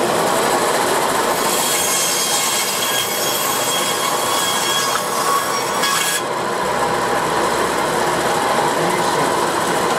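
Benchtop band saw running, its blade cutting through a halibut head, skin and bone. The cutting is harsher and hissier from about one and a half to six seconds in, then settles to a steadier running sound.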